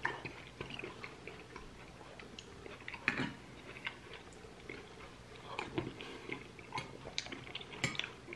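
Close-up chewing of pork rib meat and bean stew: irregular wet mouth clicks and smacks, with a few sharper clicks, the loudest about three seconds in and near the end.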